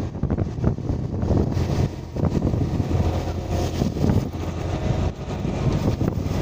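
Wind buffeting the microphone in irregular gusts over a steady low rumble.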